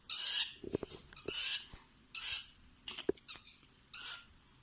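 Hand-fed baby lovebird giving raspy begging calls, about five short hissy chirps roughly a second apart, with a few soft clicks between them.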